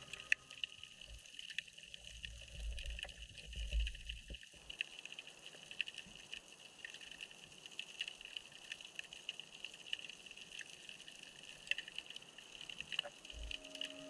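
Underwater ambience in shallow seawater picked up by a GoPro: a steady high-pitched hum with scattered crackling clicks, and a low rumble for the first four or so seconds that cuts off abruptly.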